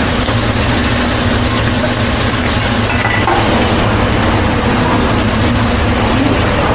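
Fried rice and noodles sizzling steadily on a hibachi griddle, over a steady low hum.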